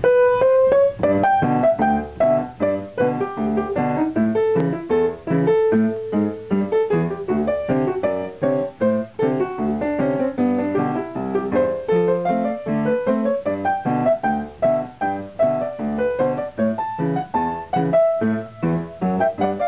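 Background piano music, a steady flow of notes throughout.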